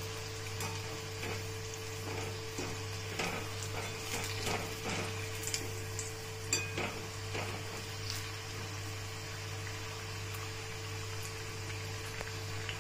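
Bhaji frying in hot oil in a kadhai on medium gas: a steady sizzle with small crackles. Midway come a few light clinks of a wire skimmer against the pan as the fritters are lifted and turned.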